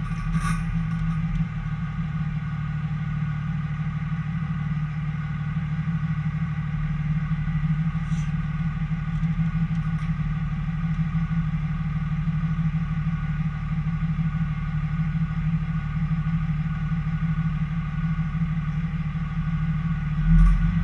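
A car's engine and road noise making a steady low drone.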